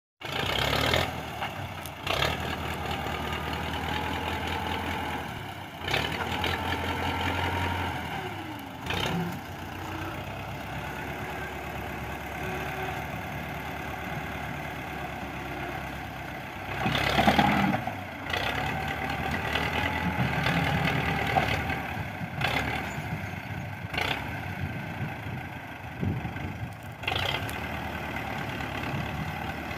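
Tractor diesel engines running while a second tractor tows a Belarus tractor to start it. The engine note rises and falls, with short louder surges, the loudest about seventeen seconds in.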